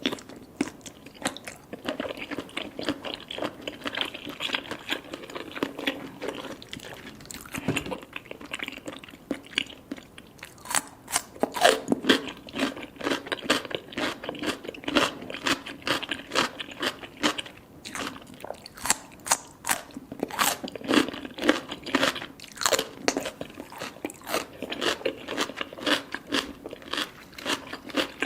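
Close-miked chewing and biting of baby cuttlefish: a rapid run of soft crunches that grows louder and denser about a third of the way in.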